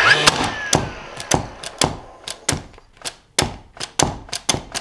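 DeWalt 18V XR cordless second-fix nailer being bumped repeatedly against pine in bump mode, making a string of sharp clicks about two to three a second. There is a louder knock at the start with a short falling whine after it. Bump mode is mostly failing to fire, which the owner puts down to the bump mode having died.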